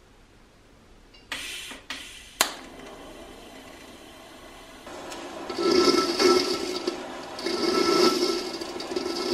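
TIG welding arc on a steel vessel at a galvanized pipe fitting: a few short bursts and a sharp click in the first seconds, then from about five seconds in a loud, uneven hiss while the arc burns off the fitting's zinc coating.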